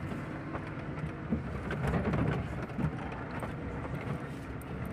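Maruti Suzuki Eeco van's engine running at low speed, heard from inside the cabin, with body rattles and knocks as it crawls over a rocky dirt track; a sharper knock comes about a second in.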